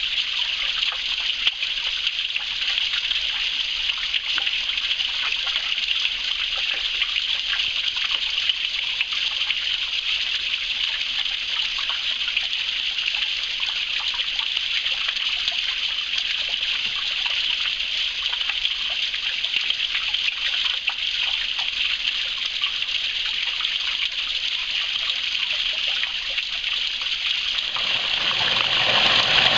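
Small stream's water running and trickling steadily. About two seconds before the end it grows louder and fuller.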